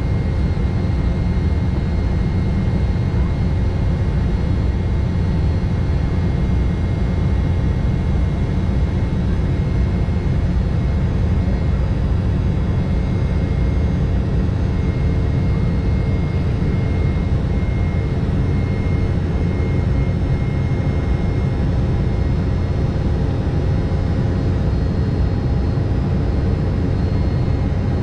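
Embraer E-190 jetliner in its climb after takeoff: the GE CF34-10E turbofans and the airflow make a steady low drone with faint steady whining tones above it.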